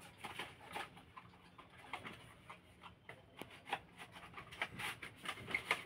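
Small cardboard product box being handled and opened: faint, scattered rustles, taps and scrapes of the box flaps and packing.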